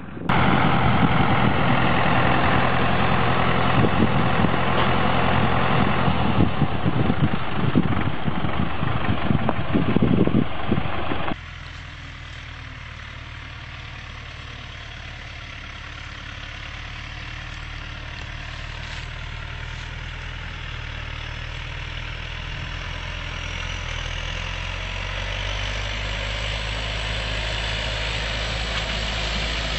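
Tractor engine running with a small square baler working behind it, loud, with irregular knocks from the baler. About eleven seconds in it cuts to a quieter, steady tractor engine that grows gradually louder as the tractor comes closer.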